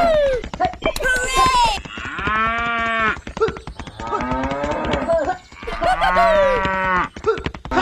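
Cattle mooing, a series of long drawn-out calls one after another.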